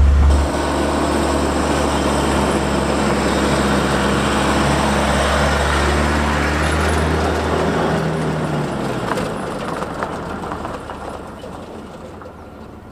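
A motor vehicle running with a steady low rumble that fades away over the last few seconds.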